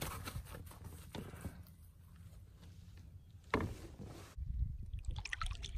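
Small boat being paddled: faint paddle strokes in the water, with one sharp knock a little past halfway. A low rumble comes in near the end.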